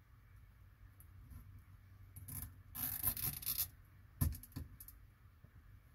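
Network cable and a hand tool being handled: scraping and rustling for a second or two, then a sharp click a little after four seconds in, followed by a few lighter ticks.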